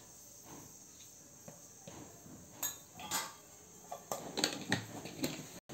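A few scattered light clinks and taps of steel kitchenware, starting about halfway in. The first half is quiet.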